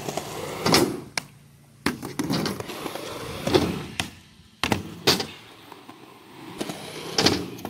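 Skateboard wheels rolling over concrete, broken by several sharp clacks and slaps of the board hitting the ground and a metal ramp.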